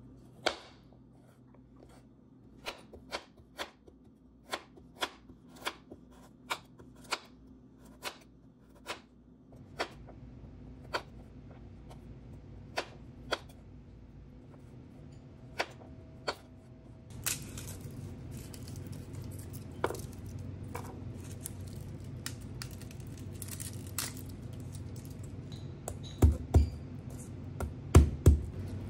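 Chef's knife cutting carrot on a cutting board: sharp single knocks of the blade on the board, about one or two a second, thinning out about halfway as a steady rushing noise comes in. Near the end, two pairs of heavy thumps as garlic cloves are crushed under the flat of the knife with the palm.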